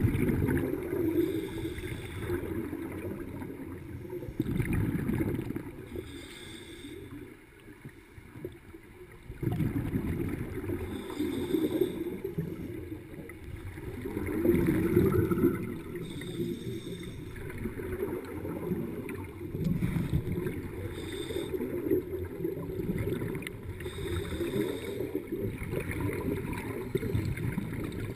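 Scuba regulator breathing heard underwater: exhaled bubbles rumble and gurgle in surges of a few seconds, with a short hiss between them every four or five seconds. The bubbling drops away for about two seconds some seven seconds in.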